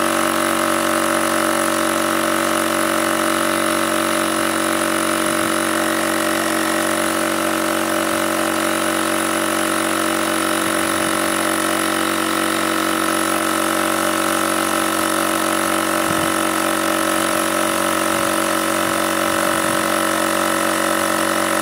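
ThiEYE AirKit portable tyre inflator's compressor running steadily at an even pitch as it pumps air into a car tyre, which is being raised from 2.0 to a preset 2.1 bar.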